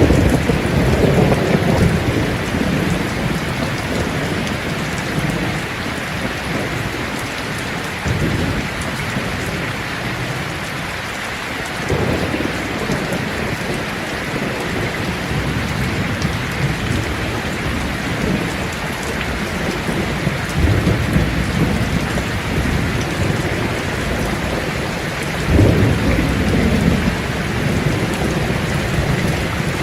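Steady heavy rain falling, with several low rolls of thunder rumbling through it, the loudest about 25 seconds in.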